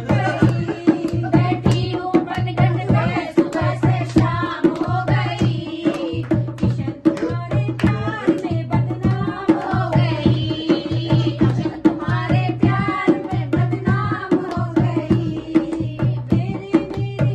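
A group of women singing a Hindi devotional bhajan, accompanied by a hand-played dholak (two-headed barrel drum) keeping a steady beat, with hand-clapping along.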